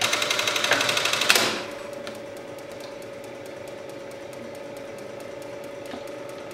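Industrial button sewing machine running a stitch cycle: a loud burst of rapid clicking for about a second and a half, then the machine keeps running with a steady hum and faint regular ticking.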